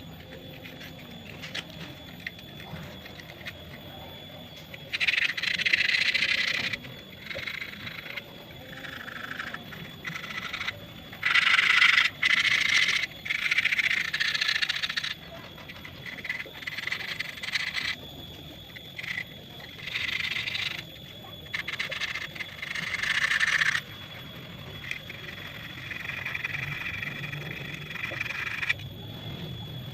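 Electric stick arc welding laying short stitch beads: a hissing, crackling arc struck again and again for a second or two at a time, with short pauses between runs.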